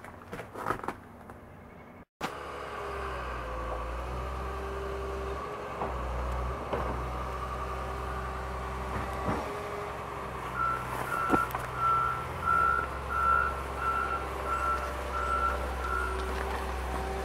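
A wheel loader's engine running steadily while clearing snow, with its reversing alarm beeping about nine times, a little under twice a second, in the second half. A few clicks come before the engine sound starts.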